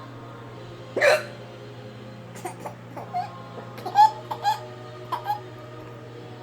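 An adult woman hiccuping: one loud hiccup about a second in, then a string of shorter, quieter ones.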